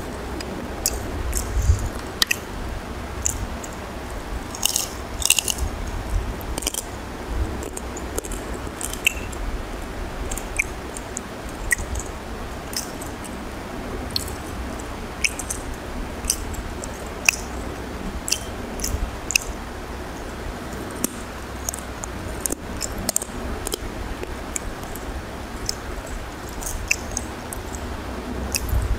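Close-miked eating sounds: a hand mixing rice and curry on a plate and mouthfuls being chewed, with many short, sharp clicks scattered throughout.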